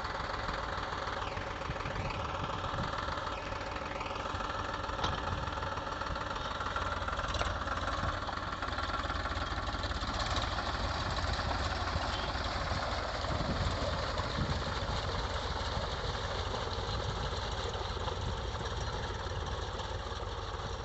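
Powertrac Euro 47 tractor's diesel engine running steadily as it pulls a cage-wheeled puddler and leveler through a flooded paddy field.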